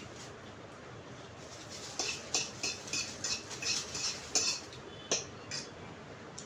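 Cutlery clinking and scraping against a plate or bowl during a meal: a quick run of about ten short, sharp clicks starting about two seconds in and stopping a few seconds later.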